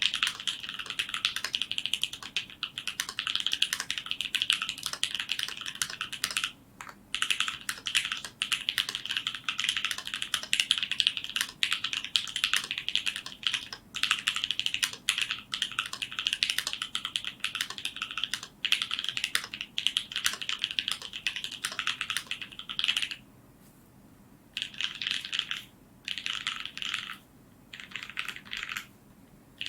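Fast typing on an Idyllic Alice N2 mechanical keyboard with H1 switches (lubed with 206g2, filmed with Deskeys films, fitted with 63.5 g springs) and GMK Umbra keycaps. The keystrokes run as a dense, steady clatter with one short pause about a quarter of the way in, then break into short bursts with silent gaps in the last quarter.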